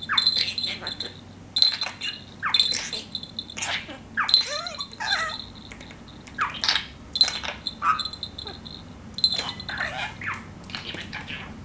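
Budgerigar chattering and warbling in short irregular bursts of chirps, squeaks and speech-like mumbling.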